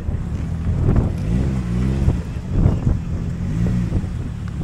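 Car engine running close by, its revs rising and falling a few times over a steady rumble.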